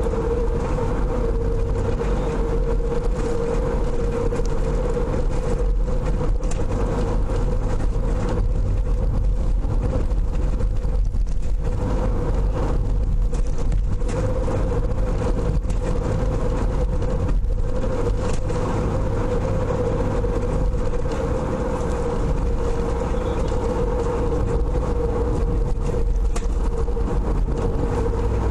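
A car heard from inside its cabin while driving: steady engine and tyre road noise with a constant drone.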